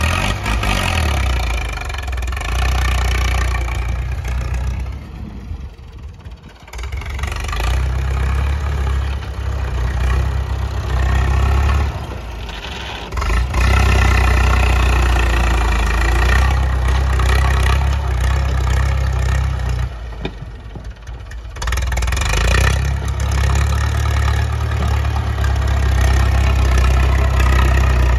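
Massey Ferguson tractor's engine working under load as it pushes soil with a front dozer blade. The engine drops back twice, about five seconds in and again about twenty seconds in, then pulls hard again.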